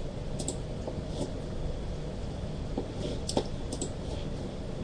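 Steady low background hum in a small room, with a few faint clicks.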